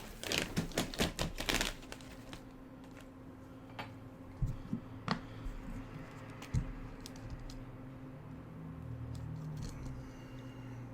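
A quick run of clicks and clatter for about two seconds, then a fume extractor fan running with a steady low hum. A few small clicks and taps of tools come through over the hum.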